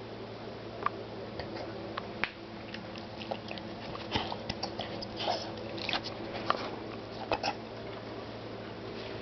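Leonberger puppy hiccuping: a string of short, sharp hics at uneven intervals, a second or two apart and closer together in the middle.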